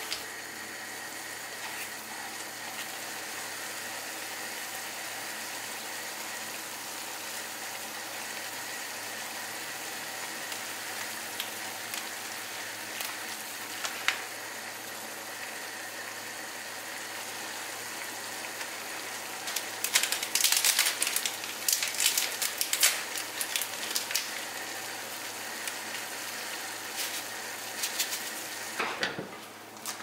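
Ramen broth simmering in a pan with a steady sizzle, and a louder spell of crackling and clicks about twenty seconds in.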